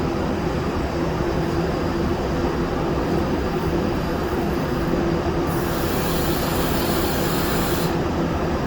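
Steady drone of shop machinery with a constant hum. About five and a half seconds in, a burst of hissing air from the powder-coating spray gun starts and cuts off suddenly after a little over two seconds.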